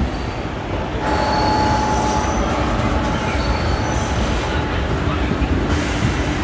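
A MEMU train pulling slowly out of a station, its wheels rumbling on the rails, heard from the open doorway. About a second in, a high-pitched squeal of wheels on rail sets in and comes and goes.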